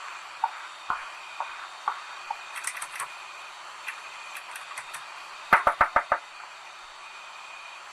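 Light footsteps on pavement, then a locked glass shop door pulled and rattled against its frame: five sharp knocks in quick succession about five and a half seconds in, over the steady hiss of an old film soundtrack.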